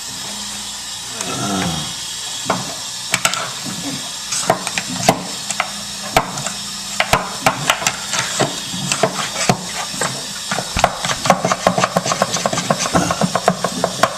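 Water hissing through a water heater's drain opening that is clogged with mineral sediment, while a probe jabs and scrapes at the buildup. This makes a string of sharp clicks and knocks that come faster and closer together over the last few seconds.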